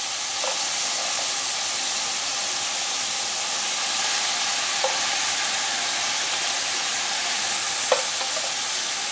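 Cubes of pork searing in a very hot stainless steel pan, frying with a steady, loud sizzle. A few light clicks of a fork turning the meat against the pan come through.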